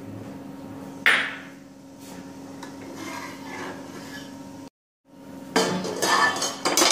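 Steel ladle stirring and scraping in an aluminium pot of dal, with a sharp clink against the metal about a second in. After a short dropout, a metal lid and the ladle clatter against the pot several times near the end, over a faint steady hum.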